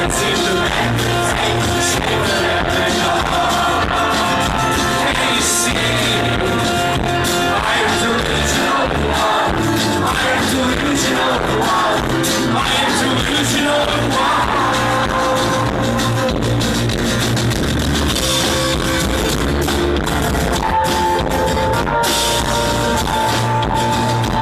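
Live rock band playing loudly, with electric guitar, bass, drums and singing.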